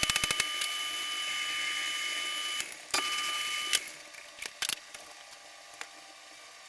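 A motorized shop tool runs with a steady whine and hiss. It opens with a quick rattle of clicks, stops about two and a half seconds in, and runs again briefly before cutting off.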